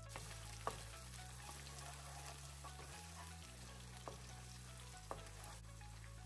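Sliced onions sizzling in hot oil in a nonstick wok as they are stirred with a wooden spoon, with three sharp knocks of the spoon against the pan.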